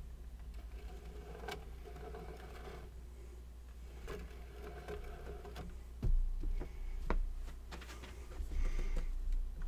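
Handling sounds from setting a miniature figure on a spray booth's turntable and turning it: light taps and scrapes, then a few sharp knocks and thumps in the last few seconds, over a steady low hum.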